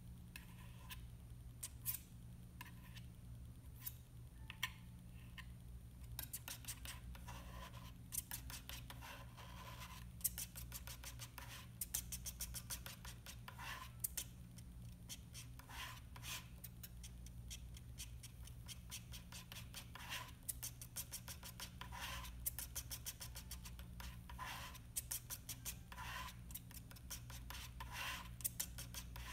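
Metal palette knife scraping and tapping thick oil paint on a board in short, quick strokes, sparse at first and coming thick and fast from about a quarter of the way in.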